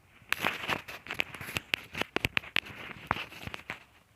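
Handling noise close to the microphone: an irregular run of sharp clicks and taps, starting shortly after the beginning and stopping before the end.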